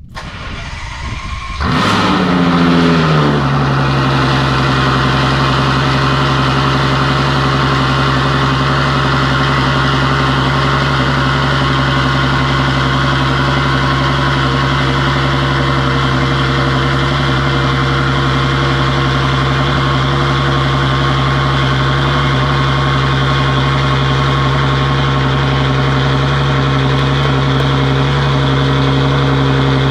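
Ferrari FF's 6.3-litre V12 with a Kline full exhaust cold-starting: a short spell of cranking, then the engine catches with a loud flare of revs that falls away within a couple of seconds. It settles into a loud, steady cold-start idle.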